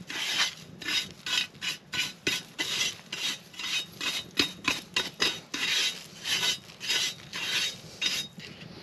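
Stiff hand brush sweeping ash and dust off the lid of a cast iron Dutch oven in quick back-and-forth strokes, about three a second. The lid is being cleared past its rim before it is opened.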